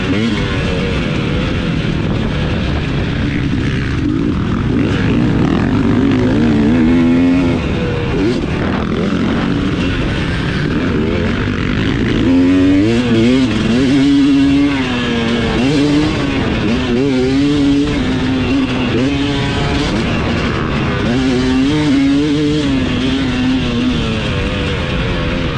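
KTM 250 dirt bike engine at full race pace, its pitch climbing and dropping over and over with throttle and gear changes.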